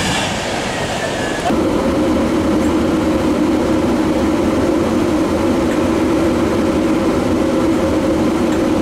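Rumble of a departing train, then, about a second and a half in, a steady loud drone with two held tones: a Class 90 electric locomotive standing at the platform with its cooling fans running.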